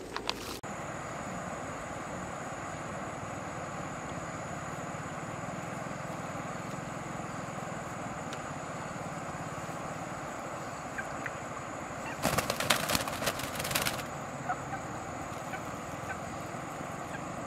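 Steady outdoor background hiss with a thin, high, steady tone. About two-thirds of the way in comes a short flurry of flapping and rustling: a black chicken flapping up onto a branch over the river.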